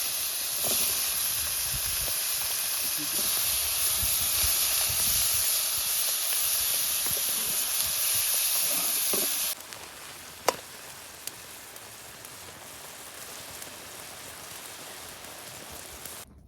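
Steady sizzling hiss of food frying on a hot pan, cut off abruptly about nine and a half seconds in. A quieter background follows, with a sharp click about a second later.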